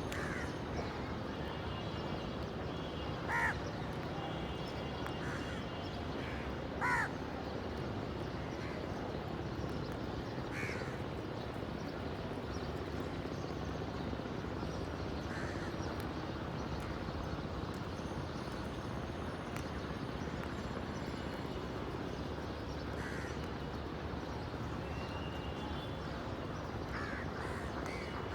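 Crows cawing: single caws spaced several seconds apart, the two loudest about three and a half and seven seconds in, over a steady background rush.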